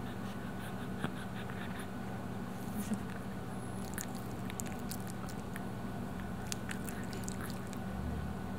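Steady low electrical hum with scattered small clicks and ticks, most of them in the middle of the stretch.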